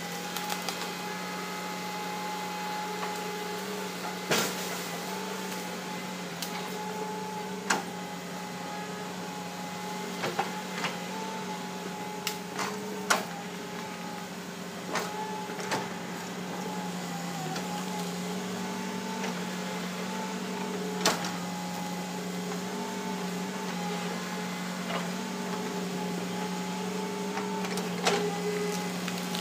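Hitachi Zaxis 200-5G hydraulic excavator's diesel engine running steadily with a constant hum while it swings and digs. Sharp knocks and cracks break in now and then, about a dozen in all, as the bucket and boom work the ground and brush.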